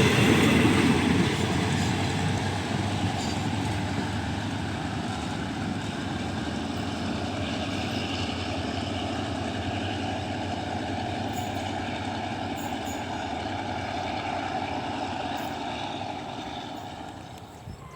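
Train running through the station, a heavy rumble that is loud at first and fades gradually as it moves away.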